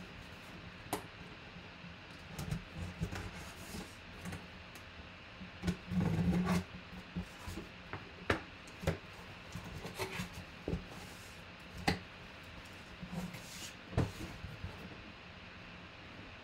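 Cardboard box being opened by hand: packing tape peeled and torn, flaps scraped and folded back, with scattered short knocks and rustles and a longer scraping noise about six seconds in.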